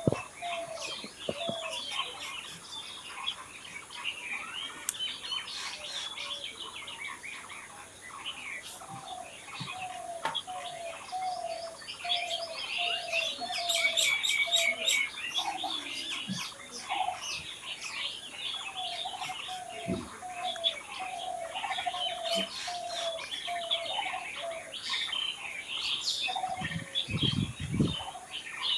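A chorus of small songbirds chirping and twittering, with one lower bird repeating a short falling note over and over, about one every three quarters of a second. A few low thumps near the end.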